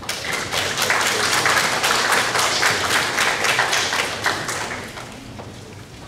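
Audience applauding, starting at once, holding for a few seconds and dying away about five seconds in.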